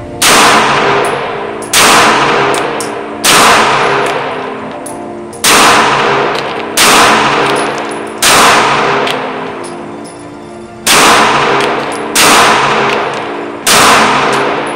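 CZ P10C striker-fired pistol fired nine times in three strings of three shots, the shots in each string about a second and a half apart. Each shot rings and echoes off the walls of an indoor range before the next.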